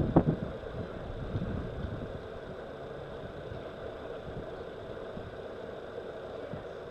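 A motor humming steadily, with a sharp knock right at the start and a few softer thumps in the first two seconds.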